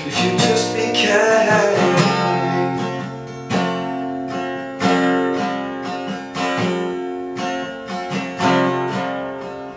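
Acoustic guitar strummed in an instrumental break of a folk song, with a fresh strum every second or two and the chords ringing out between them.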